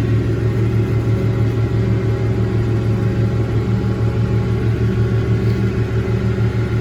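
Massey Ferguson 1105 tractor's diesel engine running steadily under load, powering a John Deere 335 round baler as it picks up hay. It is a continuous low drone with an even pulse.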